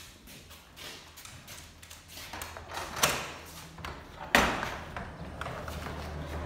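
Wooden plank door being worked open by hand: its latch and boards clatter and knock, with two loud bangs about three and four and a half seconds in. The door swings open near the end, and a low steady hum comes in.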